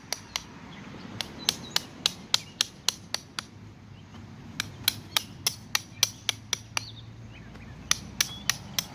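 Hammer striking in quick runs of blows, about three a second, with short pauses between runs. These are likely nails being driven fully in to anchor plastic lawn edging.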